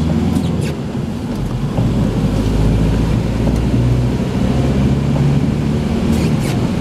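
Engine and road noise heard from inside a moving car's cabin: a steady low rumble with an engine hum.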